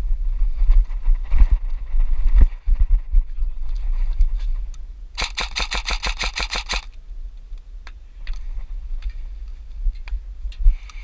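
Airsoft gun firing a rapid burst of about a dozen sharp clacking shots, lasting about a second and a half, with scattered knocks and a low wind or handling rumble on the microphone around it.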